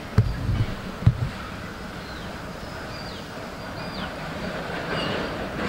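Freight train of petrol tank wagons rolling past, a steady rumble with a few heavy low thumps in the first second and a half.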